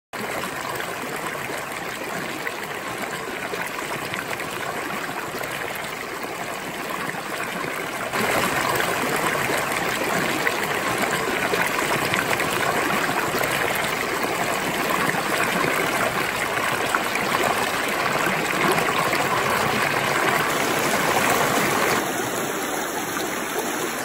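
Mountain stream rushing over granite boulders and bedrock: a steady, even hiss of flowing water. It gets louder about a third of the way in and drops back a little near the end.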